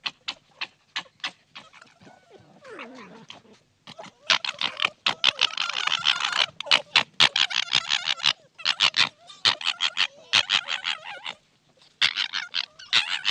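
Foxes fighting: rapid stuttering chatter (gekkering) and harsh screeching calls in fast trains of short pulses. A lower, falling growl comes about two seconds in, and the calling breaks off briefly about eleven seconds in before starting again.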